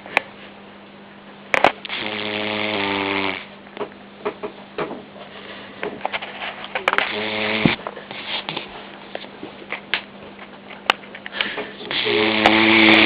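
Vizsla puppy snoring in its sleep: three long snores about five seconds apart, each a noisy breath carrying a buzzing pitched tone, with short clicks between them.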